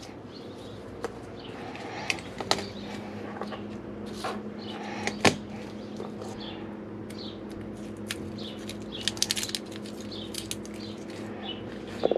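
Scattered light knocks and clicks of hands and utensils working on a kitchen counter during food prep, the sharpest about five seconds in and a quick cluster near nine seconds, over a steady low hum.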